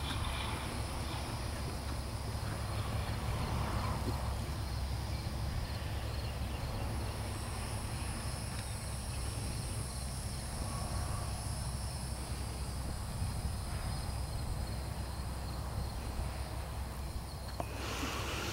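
Insects droning steadily at a high pitch over a constant low rumble.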